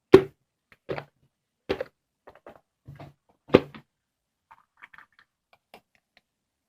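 A series of sharp knocks or thumps, irregularly spaced about a second apart, with the loudest at the start and at about three and a half seconds, followed by a few faint ticks.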